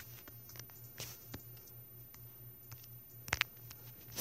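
Faint scattered taps and clicks from fingers working a phone's touchscreen and handling the phone, with a sharper double click about three seconds in, over a steady low hum.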